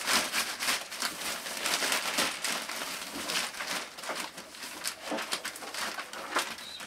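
Thin black plastic bag rustling and crinkling in irregular handfuls as it is worked off a large boombox by hand.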